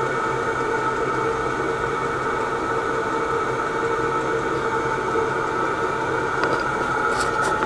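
Chinese diesel air heater running: a steady fan whir with a constant whine.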